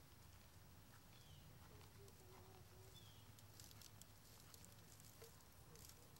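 Near silence: faint outdoor ambience with a low steady hum, two faint high chirps, and scattered soft clicks in the second half.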